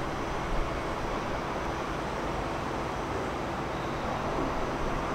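Steady urban background noise of traffic and trains, with no distinct event.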